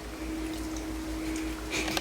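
A steady low electrical-sounding hum with faint soft rustling, and a brief soft sound near the end.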